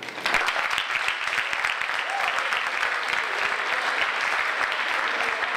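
An audience applauding. The clapping starts a moment in and stays steady.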